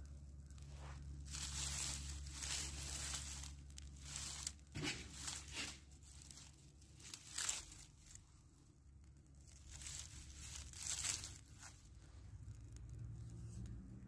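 Dry grass and twigs burning in a small smoky fire, crackling and hissing in irregular bursts.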